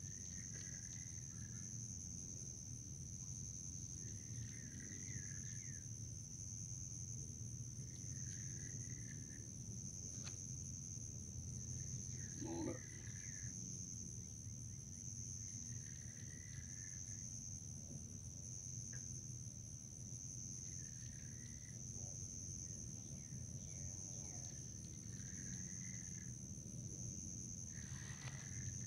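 Steady high-pitched insect chorus with a gentle pulse. A short mid-pitched call repeats about every four seconds over a low rumble.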